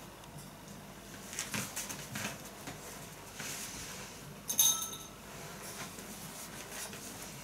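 Dry dog food tossed into a white ceramic bowl: a sharp clatter with a brief ringing, about four and a half seconds in. Before it, softer rustling and shuffling of movement on a rug.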